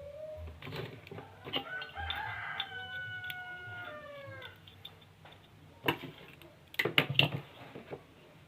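A rooster crowing once: a long call held steady, then falling in pitch at its end. Afterwards come a few sharp clicks and knocks.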